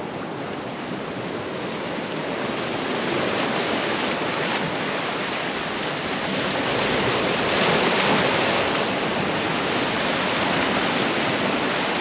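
Sea waves washing and breaking over shoreline rocks, a steady rushing surf that swells louder about two-thirds of the way through.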